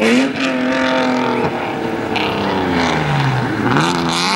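Rally car engine at high revs, its pitch held steady, dropping twice and then climbing sharply near the end as it accelerates hard.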